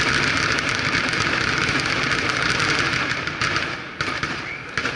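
Fireworks crackling densely, with many rapid pops merging into a continuous crackle that dies down about four seconds in.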